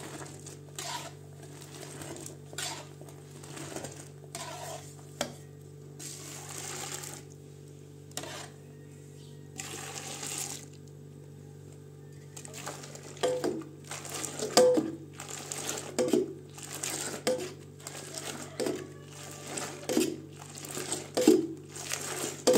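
Metal bowl scooping milk out of a wide aluminium pot and pouring it into a second aluminium pot: repeated clinks and scrapes of metal on metal with splashing pours, coming faster and louder in the second half, over a steady low hum.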